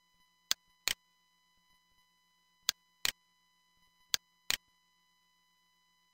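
Computer mouse button clicking: six sharp clicks in three pairs.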